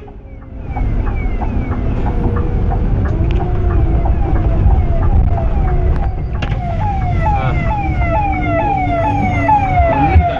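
Electronic vehicle siren sounding in short falling sweeps, about two a second, starting faint and growing louder, over the low rumble of the moving coach.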